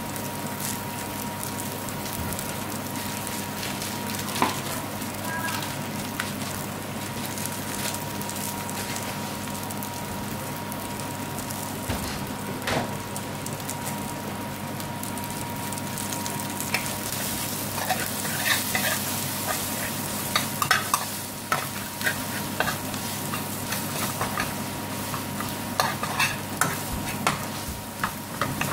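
Chopped onion, garlic, bay leaves and curry powder frying in ghee in a metal frying pan, with a steady sizzle. In the second half a metal spoon stirs the mixture, scraping and clicking against the pan.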